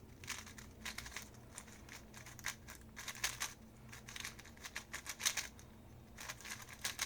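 XMD Tornado V3M Pioneer magnetic 3x3 speedcube being turned fast during a solve: quick runs of clicking turns with short pauses between them.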